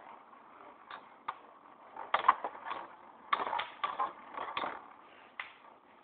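Two Beyblade spinning tops battling in a shallow tub of water, clacking against each other in irregular sharp clicks and knocks, with flurries of hits about two seconds in and again from about three to five seconds in.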